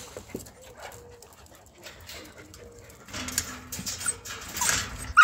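Small dogs whining and panting as they jump up at people, with a short loud cry right at the very end.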